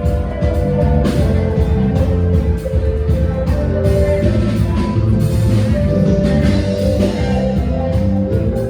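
Live band music at loud volume: held instrument notes over a bass line and a steady beat.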